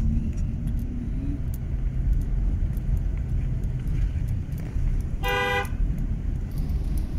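Steady low rumble of a car driving, heard from inside the cabin, with one short car horn toot a little past five seconds in.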